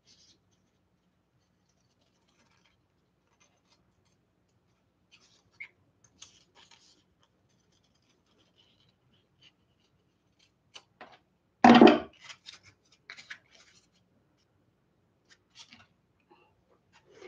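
Scissors snipping through folded paper in short, sparse cuts, with faint paper rustling. About twelve seconds in there is one louder short knock.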